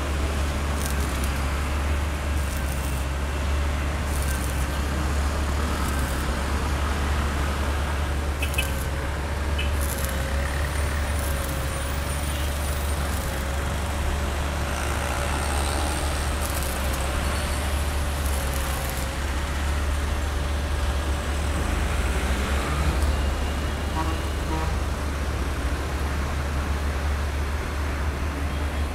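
City street traffic: a steady low rumble of passing vehicles, with a thin wavering hum through most of the first twenty seconds and scattered light clicks.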